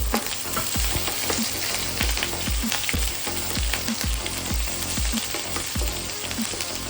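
Chopped green chilies frying in hot oil and ghee with mustard seeds and curry leaves: a steady sizzle with many scattered crackles.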